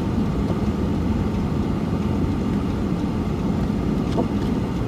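Steady low rumble of a four-wheel-drive vehicle driving on a slick, snow-covered road, heard from inside the cab.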